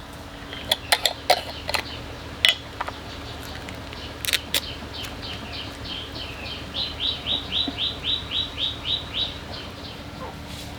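A bird chirping: a quick run of short, falling chirps, about five a second, through the second half. Earlier come a handful of sharp clicks or knocks.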